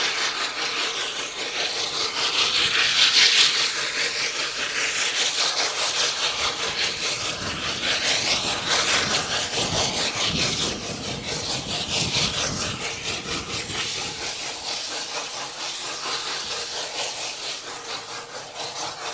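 Rack-railway steam locomotive of the Schneebergbahn working hard, its exhaust a fast, continuous run of beats that fades gradually as the train draws away.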